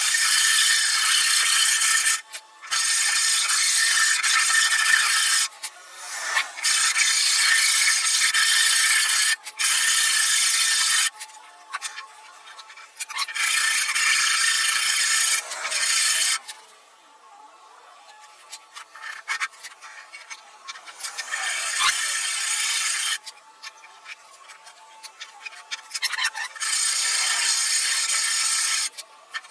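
A hand file scraping along the curved edge of a wooden form, working it down to a marked line. It comes in runs of rapid strokes lasting a few seconds each, with short pauses between, and a longer quieter break about two thirds of the way through.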